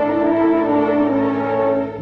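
Slow orchestral background music with long, held brass notes.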